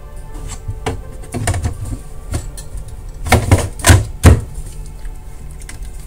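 Xbox console parts being handled and fitted during reassembly: a series of sharp knocks and clicks, loudest in a cluster about three to four seconds in. Background music plays under them.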